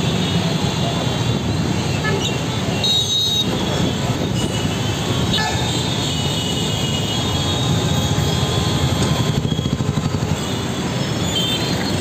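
Dense city road traffic in a jam: a steady wash of idling and creeping engines, with several short horn toots now and then.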